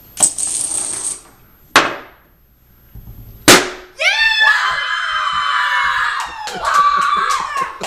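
Dominoes clattering down in a quick run for about a second, then a single sharp knock, then a loud balloon pop, the loudest sound. From about four seconds in, a girl screams and cheers in long, high, excited yells.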